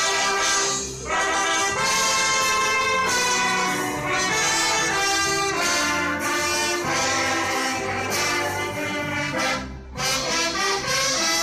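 An orchestra playing sustained, held melodic phrases, with brief breaks between phrases about a second in and again near the end.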